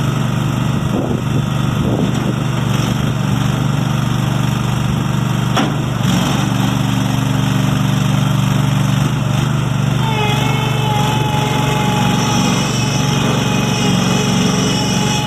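Terramite T5D loader backhoe's 20 HP Kohler gas engine running steadily. About ten seconds in, a steady high whine joins the engine sound.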